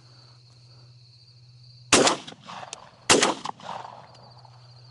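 Two shotgun shots about a second apart, fired at a passing dove, each with a short echo. Crickets trill steadily behind them.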